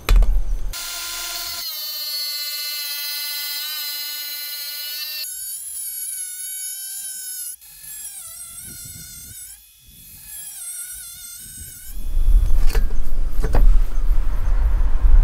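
Makita cordless angle grinder with a cutting disc spinning with a steady high whine, then cutting through a thin metal sheet, its whine wavering and shifting in pitch under load. About twelve seconds in, a loud low rushing noise takes over.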